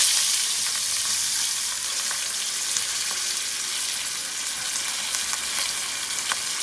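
A whole salted fish sizzling in hot oil in a frying pan, just laid in: a steady loud hiss, strongest at the very start, with a few sharp pops and crackles.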